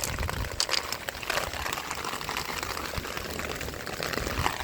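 Rainwater running through an open French drain, a steady rush of water with a few short rustles and knocks.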